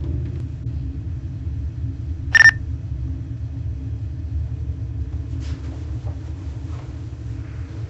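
A steady low rumble, with one short high beep about two and a half seconds in: a cell phone's text-message alert.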